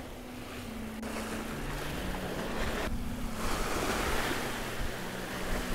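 Atlantic surf washing over a rocky shoreline, swelling into a louder wash about halfway through.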